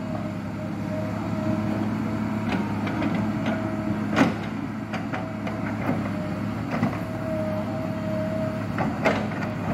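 Kobelco SK200 hydraulic excavator's diesel engine running steadily as it digs, with a higher tone that comes and goes. About five sharp knocks sound at uneven intervals.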